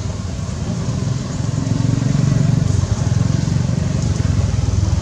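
A low, steady engine rumble with a fast even pulse, swelling about two seconds in.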